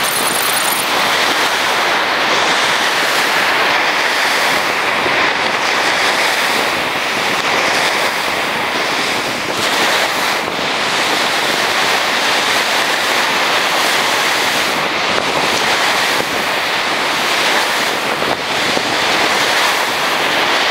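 Surf breaking on a sandy beach: a steady, dense rush of waves.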